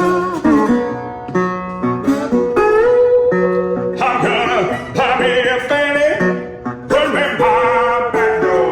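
Acoustic guitar playing a fingerpicked blues, with a few notes sliding up in pitch.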